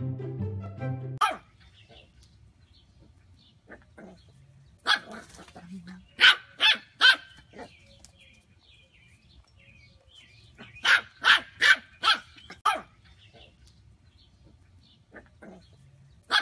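Small dog barking in two runs of about five quick, sharp barks, a few seconds apart.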